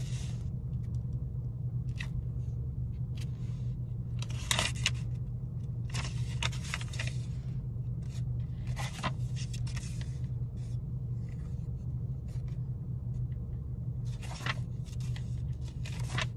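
Tarot cards being shuffled and handled: short scrapes and flicks every second or two, with clusters about a third of the way in, in the middle and near the end, over the steady low hum of a car running.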